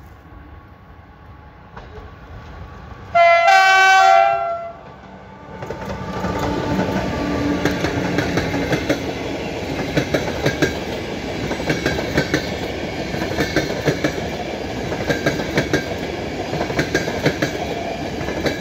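EP09 electric locomotive sounds its horn in one loud blast of about a second and a half. Then the locomotive and its passenger coaches pass close by: a steady rumble with the wheels clicking rhythmically over the rails.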